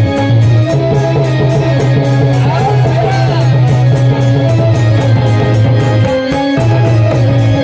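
Instrumental interlude of a folk devotional song: a steady bass drone under a melody line, with a fast, even beat of about four strokes a second. The music drops out briefly about six seconds in.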